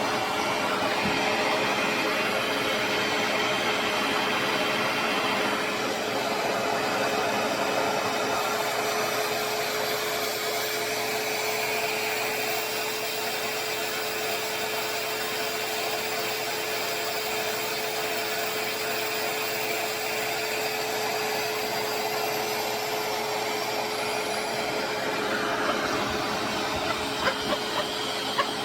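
RevAir reverse-air hair dryer running steadily on setting one with the heat on: a constant suction and airflow rush with a steady hum, as it draws the hair through its tube. A few light clicks near the end.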